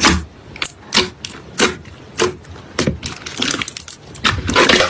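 Clear slime filled with foam beads being squeezed and pressed by hand, giving sharp pops and clicks about once or twice a second, with a denser run of crackling near the end.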